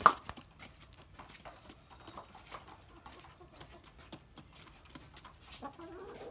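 Chickens pecking grain from a plastic feeder tray: a sharp tap right at the start, then many light, irregular pecking ticks. A chicken gives a short rising call near the end.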